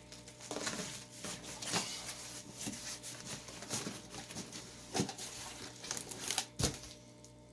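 Subwoofer's shipping box and packaging being opened and handled: crinkling, rustling and tearing with scattered knocks and scrapes, quieter near the end.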